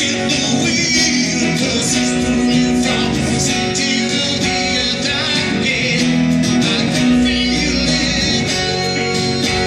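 Two guitars playing a slow rock song live through a PA, the chords ringing on steadily.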